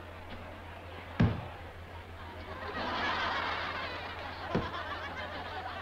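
Laughter swelling up around the middle, between two sharp knocks: a loud one about a second in and a smaller one near the end, over a steady low hum.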